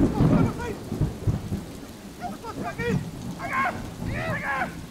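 Hunting hounds baying and yelping in clusters of short cries that rise and fall in pitch, starting about two seconds in. Wind buffets the microphone with heavy rumbling, strongest in the first second and a half.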